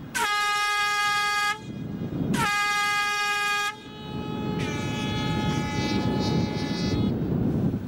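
Handheld canister air horn giving two steady blasts of about a second and a half each, then a longer blast with a thinner tone lasting about two and a half seconds.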